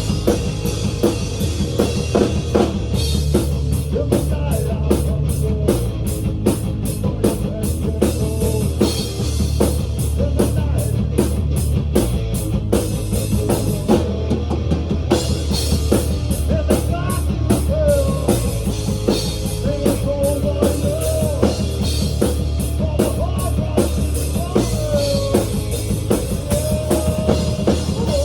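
Rock music with a steady drum-kit beat, bass and a wavering melody line over it.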